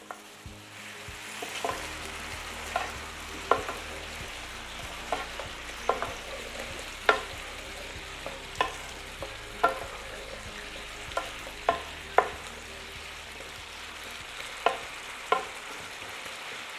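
Spoon stirring chopped potato filling in a pot while it sizzles, knocking against the pot about a dozen times at uneven intervals over a steady hiss of frying.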